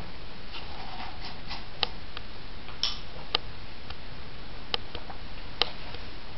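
A handful of sharp, light clicks and ticks at irregular intervals over a steady background hiss, from tools and metal being handled at the workbench.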